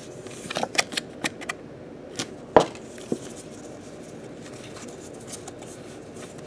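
Foil trading-card booster pack being handled and opened: a quick run of crinkly clicks over the first second and a half, then one sharp snap about two and a half seconds in.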